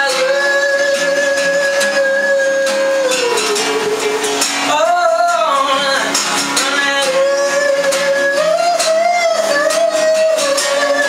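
Live song with guitar accompaniment: a voice holding long, slowly bending wordless notes.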